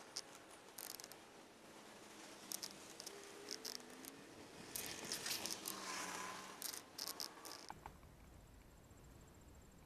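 Faint, fast-forwarded sounds of spinning-reel fishing: scattered clicks and ticks of the reel and rod being handled, busiest about halfway through, with a few short gliding tones.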